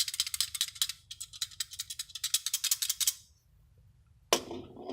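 Rapid light metallic rattling from the clutch disc hub of a Honda CR-V with a manual gearbox. It comes as about ten sharp clicks a second in two runs, with a short break about a second in, and stops about three seconds in. The hub is worn and battered on its splines, which lets the disc knock about.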